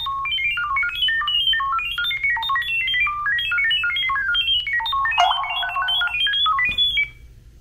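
Smartphone speaker playing a rapid string of short electronic beeps at jumping pitches, about ten a second, stopping near the end: the acoustic pairing signal that sends the Wi-Fi settings to a security camera's microphone during setup.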